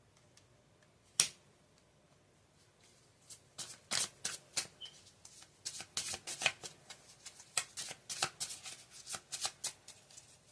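Tarot cards being shuffled by hand. There is a single sharp snap about a second in, then from about three seconds in a run of quick, irregular card slaps and rustles, several a second.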